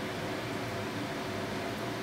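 Gas stove burner hissing steadily under a clay pot of soup, with a faint steady hum underneath.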